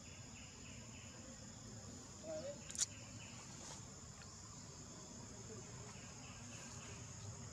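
Steady high-pitched drone of forest insects, with one sharp click a little under three seconds in.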